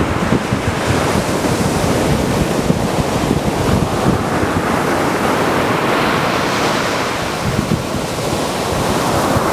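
Mediterranean surf breaking and washing on a beach, a steady rush of waves, with wind buffeting the microphone.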